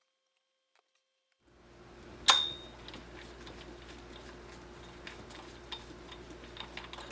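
Near silence, then a steady room hum. About a second later comes one loud, sharp clink with a brief high ring, followed by scattered light ticks and clicks of things being handled.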